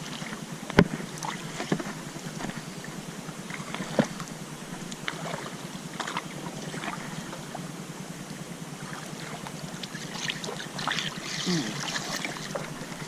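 Canoe on a river: a few sharp knocks on the hull over steady water and wind noise, with a louder stretch of water noise near the end.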